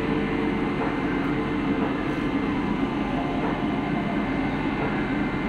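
Steady, unbroken drone of a docked passenger ship's engines running, a low hum with a faint high whine above it.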